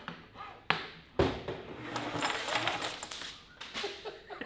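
Steel inner handbrake cable being ripped out of its outer sheath: a couple of knocks, then a rasping, rattling slide of about two seconds as the wire runs out of the housing.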